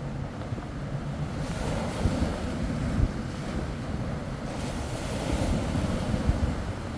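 Surf breaking and washing up the beach, with strong wind rumbling on the microphone. The rush of water swells about one and a half seconds in and again past the middle.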